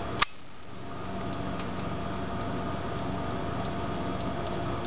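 A steady mechanical hum with several held tones, with one sharp click just after the start.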